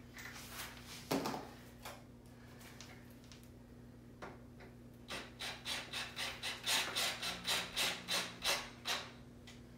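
Cordless drill driving a screw into the chair's frame: a rapid run of short grinding pulses, about five a second, that grow louder as the screw tightens. Before it, about a second in, there is a single knock.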